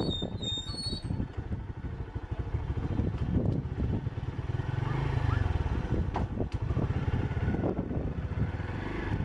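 Wind buffeting the microphone: an uneven, gusting low rumble that swells about five seconds in.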